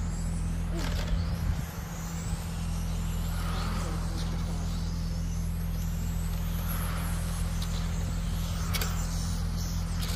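Radio-controlled race cars running laps, their high-pitched whines rising and falling as they pass, over a steady low hum, with a few short clicks.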